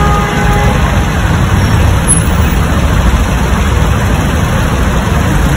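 Steady city traffic noise with a heavy low rumble.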